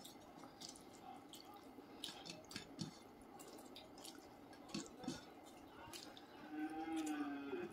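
Close-up eating sounds: wet lip smacks and chewing clicks, and fingers squishing rice mixed with curry, in scattered small ticks. A short hum is heard near the end.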